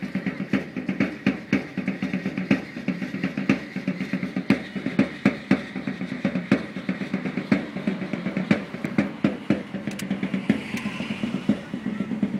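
Matachines dance drum beating a quick, steady beat.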